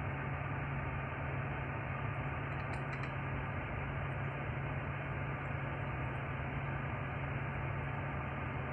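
Chevrolet Monte Carlo's heater blower fan running on high, a steady rush of air through the dashboard vents, heard inside the cabin with a steady low hum beneath it.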